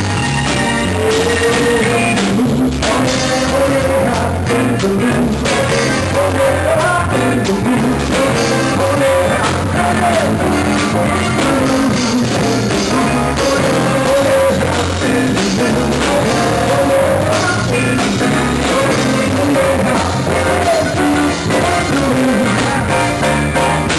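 Live dance band playing with keyboard, congas and drum kit, and a singer's voice over the music.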